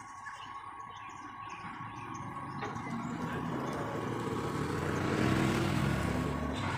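Heavy diesel tow truck running under load as it pulls a tractor-trailer, growing louder as it comes closer and loudest about five seconds in.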